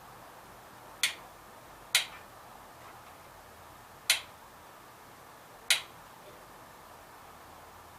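Four sharp, separate clicks at uneven intervals, about a second, two, four and nearly six seconds in, over a quiet steady background.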